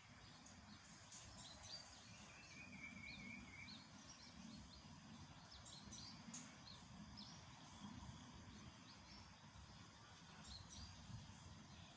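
Faint outdoor ambience: scattered high bird chirps, with a short warbling trill a couple of seconds in, over a steady low rumble.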